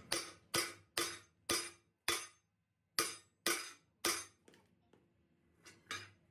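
Hand hammer striking a steel truck axle housing: eight sharp, ringing blows about two a second, with a short pause after the fifth, then two lighter taps near the end.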